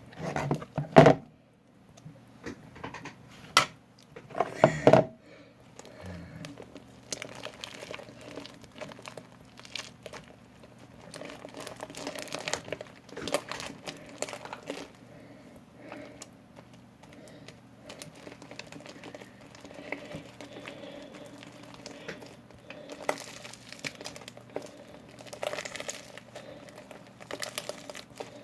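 Slime being kneaded and squished by hand: an irregular run of small crackles and clicks, with a few louder squelches in the first few seconds.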